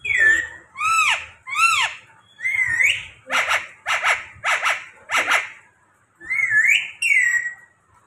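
A green ring-necked parakeet whistling and calling in short separate notes. First come several gliding whistles that rise and fall. Then there are four harsh calls about half a second apart, and two more whistled glides near the end.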